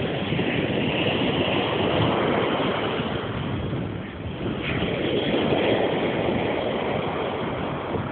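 Surf washing onto a sandy beach, mixed with wind buffeting the microphone in a steady rough rush.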